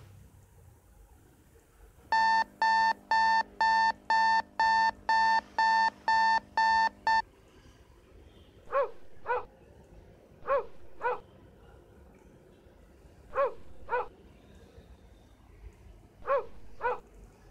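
An alarm clock beeping, about two beeps a second for some five seconds, then stopping. After it, a dog barks twice in quick succession, four times over, a few seconds apart.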